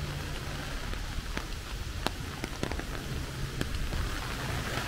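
Steady rain falling, with a few sharp single drop hits standing out now and then.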